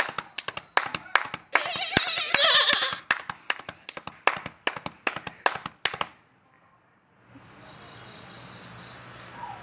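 A man imitating a horse: sharp rhythmic clicks, about four a second, mimicking galloping hoofbeats, with a loud whinny-like neigh about two seconds in. The clicking stops about six seconds in, and after a short silence a steady low hum sets in.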